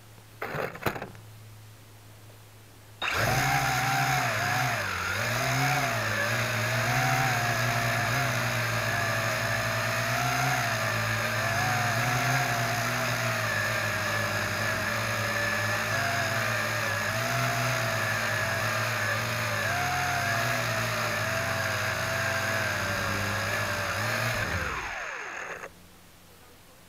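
Intruder UFO quadcopter drone's electric motors and propellers whirring, heard from the camera mounted on the drone. They start about three seconds in, waver in pitch through the flight, and wind down and stop near the end.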